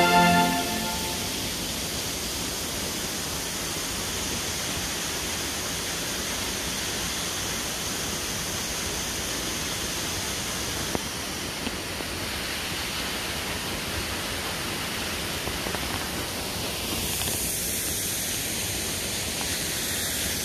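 Steady, even rushing of water still falling behind the ice of a frozen waterfall. Background music fades out in the first second, and there are a couple of faint clicks about halfway through.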